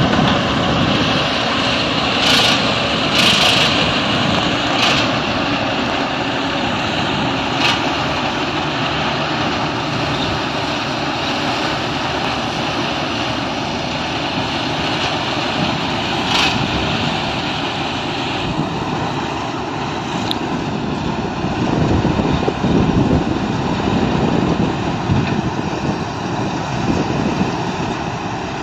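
Combine harvester running steadily as it cuts ripe paddy, a continuous engine and threshing drone, with a few short sharp clicks in the first several seconds.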